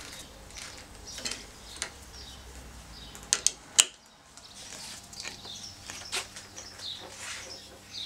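Short metallic clicks and clinks of a hex chuck key turning in a four-jaw lathe chuck as the chuck is tightened onto a wooden blank. The sharpest two clicks come a little after three seconds in.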